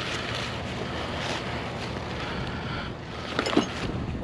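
A vehicle engine running steadily under wind noise on the microphone, with a few light clicks and rattles near the end and a sharp click at the very end.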